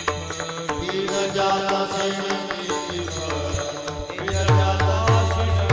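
Devotional kirtan music between sung lines: a melodic line with small hand cymbals and a deep drum. About four and a half seconds in, the drum strokes become loud and regular, roughly two to three a second.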